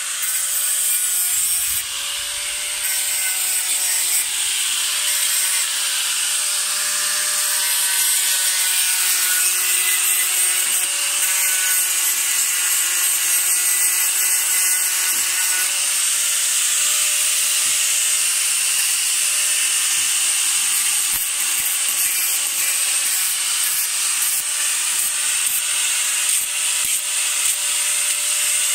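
Handheld angle grinder running continuously, its disc pressed against a small rusty vise to grind the rust off. A steady motor pitch under a harsh, even grinding hiss.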